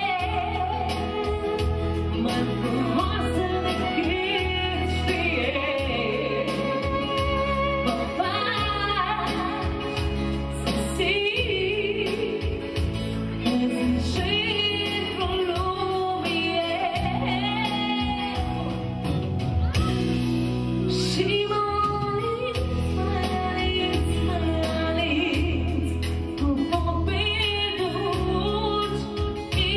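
A woman singing live through a handheld microphone and PA, her voice wavering with vibrato, over a band accompaniment with a strong bass line.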